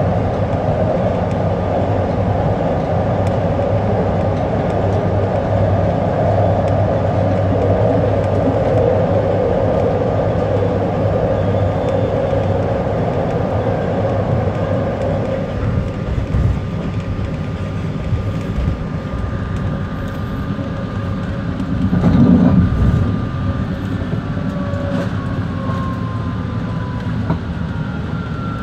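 BART train running at speed through the Berkeley Hills Tunnel, a dense steady roar that thins out about halfway through as the train leaves the tunnel for open track. Out in the open the wheels and motors run on, with a brief louder swell and thin whining tones that glide in pitch near the end.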